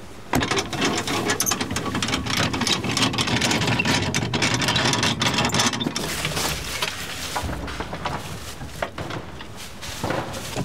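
Irregular metallic clattering and rattling, dense through the first half and thinning later, as a kiosk trailer's hitch and jack wheel are worked and the trailer is moved.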